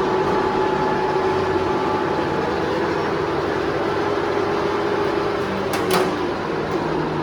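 Metal lathe running: a steady machine hum and whine with held tones, and a brief sharp clatter about six seconds in.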